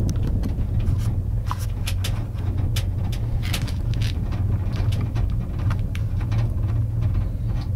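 Steady low rumble of a gondola cabin riding its cable, with frequent light clicks and rattles from the cabin.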